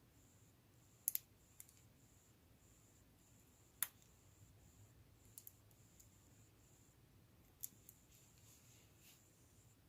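Lego bricks clicking as pieces are handled and pressed together: a handful of sharp, separate clicks, with a faint rustle of parts near the end, over near silence.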